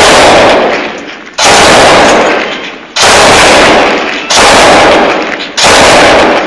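Machine gun firing in repeated bursts of about a second each, a new burst roughly every second and a half, four in all, loud enough to overload the microphone.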